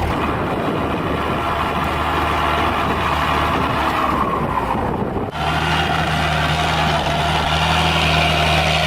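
Heavy machinery engine running steadily under work, with a rough, noisy stretch that cuts off sharply about five seconds in and gives way to a steadier low engine hum.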